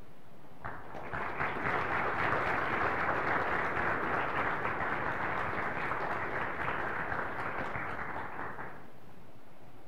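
Audience applauding at the close of a talk. The clapping starts under a second in, holds steady, then thins out and stops near the end.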